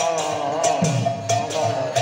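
Devotional kirtan music: a voice singing over large barrel drums and brass hand cymbals that clash in a steady, repeating beat.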